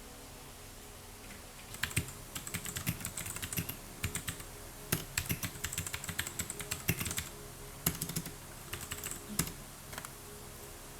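Typing on a computer keyboard: quick runs of key clicks with short pauses, starting about two seconds in.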